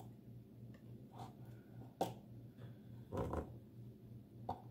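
A knife prying and scraping at frozen chunks of arugula in olive oil stuck in a plastic egg container: a few scattered clicks and knocks, the sharpest about two seconds in, with a longer scrape a little after three seconds. A low steady hum runs underneath.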